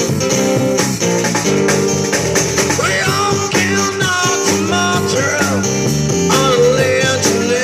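A street busker band playing live through amplification: guitars strumming a steady rhythm, with a bending melody line, singing or a lead part, entering about three seconds in.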